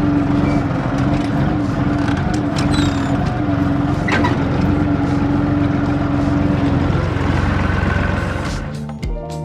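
Tractor engine running steadily at a constant pitch, with music coming in near the end.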